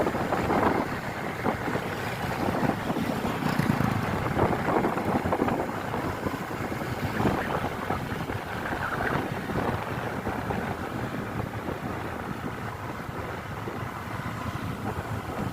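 Steady vehicle noise with wind buffeting the microphone.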